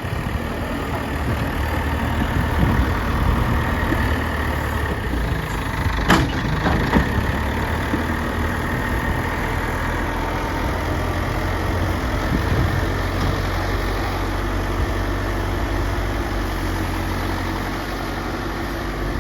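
Bulldozer's diesel engine running steadily, with a single sharp knock about six seconds in.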